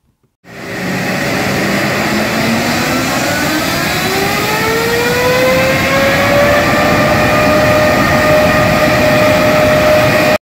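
Jet engine spooling up: a whine climbs steadily in pitch for several seconds over a loud rush, then holds steady at high power. The sound cuts off suddenly near the end.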